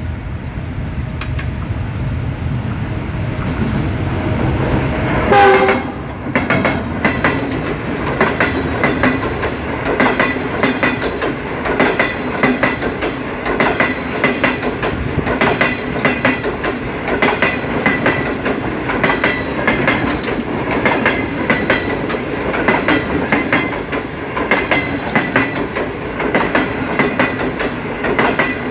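Diesel-electric locomotive rumbling as it approaches, sounding a short horn blast about five seconds in. The passenger coaches then pass close by with a steady, rhythmic clickety-clack of wheels over the rail joints.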